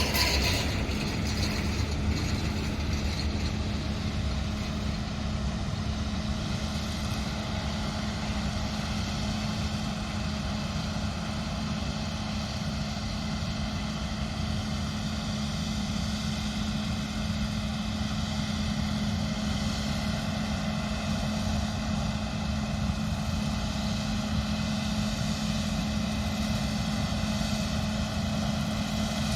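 Combine harvester running steadily at work: a continuous engine and machinery drone with a steady low hum. It eases off slightly in the first second, then holds even.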